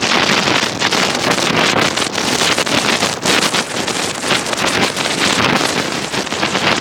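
Wind buffeting the microphone of a 360 camera mounted on a moving car: a loud, irregularly swelling rush of air noise.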